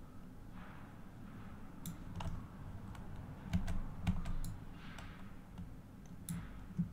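Irregular clicks and taps from a computer keyboard and mouse, scattered unevenly, sometimes several in quick succession, some with a dull knock.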